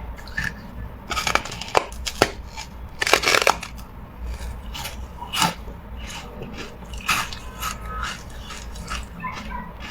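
Carbonated ice being bitten and crunched by mouth: a string of sharp cracks and crunches, with the densest burst of crunching about three seconds in and single sharp cracks in between.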